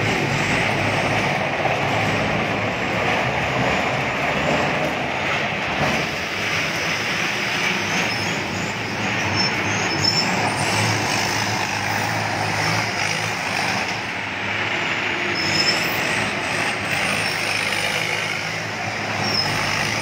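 Tracked rice combine harvester driving in close with its engine running steadily, then turning past.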